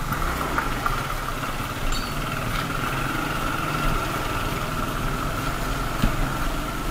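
Motorcycle engine running at low speed on a slow ride over a rough stony street, recorded from the rider's seat, with a steady high whine alongside. A single sharp knock comes about six seconds in.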